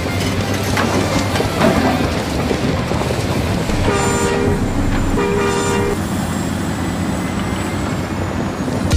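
A model truck's engine sound running steadily, with two short horn toots about a second apart midway.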